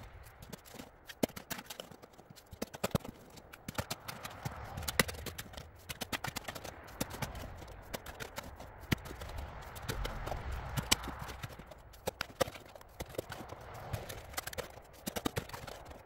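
Long-handled shovel digging a hole in soil: irregular sharp crunches and scrapes as the blade is driven into the dirt and earth is thrown onto a pile.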